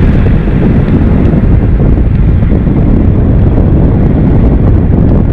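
Wind buffeting a camera microphone held out of the window of a moving pickup truck, a loud steady rumble with the truck's road noise underneath.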